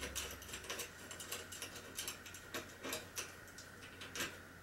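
Small, irregular clicks and taps of a nut, bolt and metal fitting being handled and fitted onto a metal tube boom, with a few sharper clicks in the second half.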